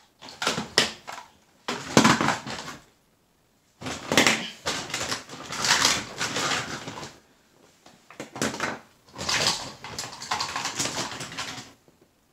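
Hard plastic action figures and zord toys clattering and rattling as hands rummage through a bag of them in a plastic crate, in several bursts separated by short pauses.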